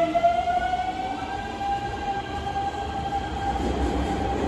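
Electric train's traction motors whining as it accelerates out of the station, the whine rising in pitch and then holding steady. A low rumble grows near the end as another train pulls in.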